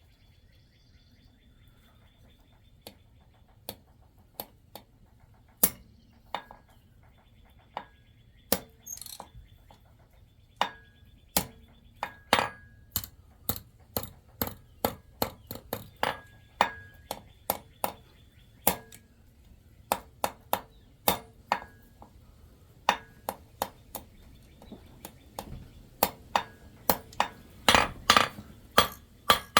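Hammer blows on a small silver piece on an anvil while forging a ring, the anvil ringing after each strike. Light, spaced-out taps at first, then quicker blows about two a second, with the loudest strikes near the end.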